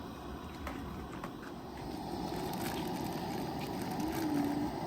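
Coleman propane camp stove burner running with a steady low rushing hiss under a cooking pot.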